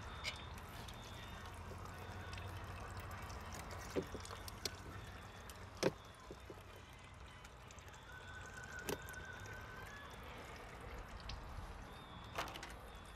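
Faint steady trickle of oil draining from a Mercury 115HP four-stroke outboard, broken by a few sharp clicks as the quick-connect inline fuel filter is handled and pushed into its fittings.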